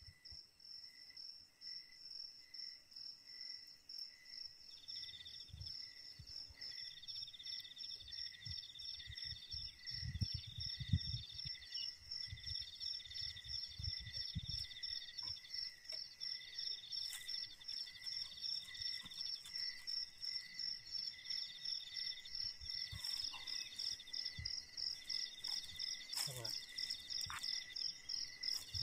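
Forest insects calling: a high, rapidly pulsing chirp runs throughout, and about five seconds in a second insect joins, trilling in bursts of about a second each. A few soft low thumps come around the middle.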